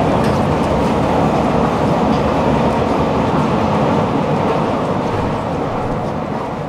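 Commuter train running on the rails: a steady, dense running noise that eases off gradually over the last couple of seconds.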